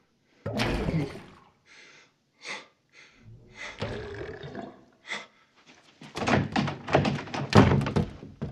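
Sound effects from a film clip: a heavy thud about half a second in, a few short knocks and a rustling, clattering stretch, then a busy run of thumps and clatters near the end.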